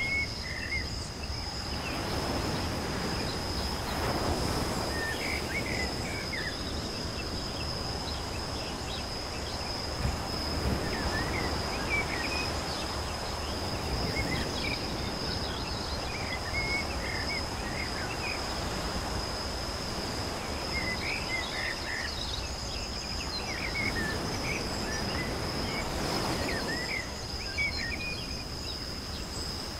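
Outdoor nature ambience: a steady high-pitched insect trill with scattered short chirps, over a hiss that swells and fades several times.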